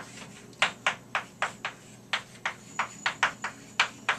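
Chalk writing on a chalkboard: a quick, uneven run of about a dozen short taps and strokes as the chalk strikes and drags across the slate while letters are written.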